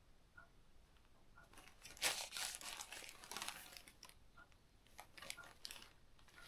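Plastic packaging bag being crinkled and pulled open by hand, in a run of irregular rustles starting about two seconds in, loudest at the start.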